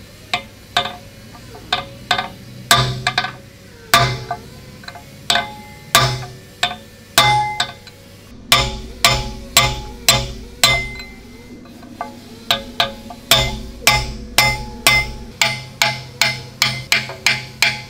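Hammer striking a steel drift set against a bearing inner race on the StuG III differential shaft, driving the bearing inner off: sharp metallic blows, each with a short ring. The blows are sparse and irregular at first, then settle into a steady run of about two a second from about halfway, coming a little faster near the end.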